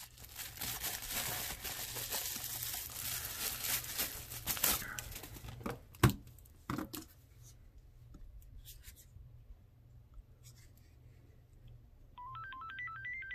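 Bubble wrap crinkling and rustling as a phone is unwrapped, then a sharp click about six seconds in. Near the end a Motorola phone plays its power-on tune, a quick run of beeps stepping upward in pitch.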